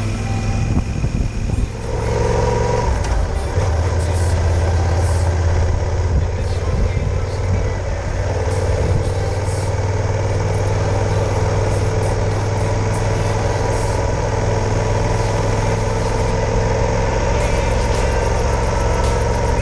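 Yamaha XT1200Z Super Ténéré's parallel-twin engine running steadily on the move, with wind rush over the microphone. The sound changes abruptly about two seconds in, then holds steady.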